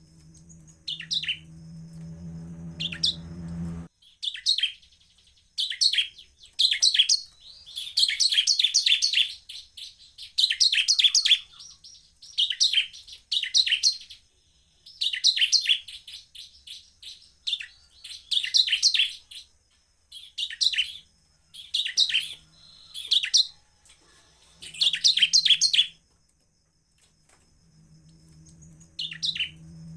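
Bar-winged prinia (ciblek) singing: about a dozen bursts of rapid, high chattering notes, each a second or so long, with short pauses between. A steady low hum sounds at the start and comes back near the end.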